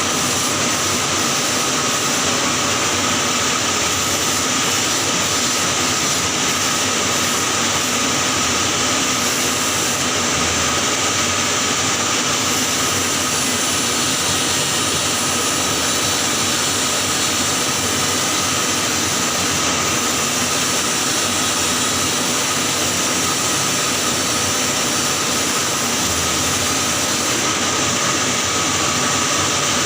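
Electric welding arc burning on a pipe weld in the 6G position, a steady, unbroken hiss with a faint steady tone running through it.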